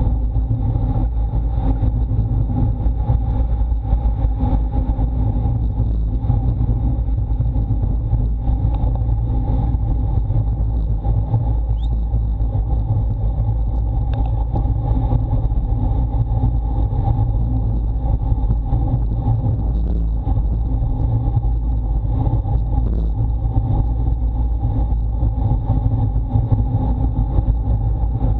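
Steady low rumble of wind buffeting an action camera's microphone on a road bike at about 55 km/h, with the road tyres humming on asphalt.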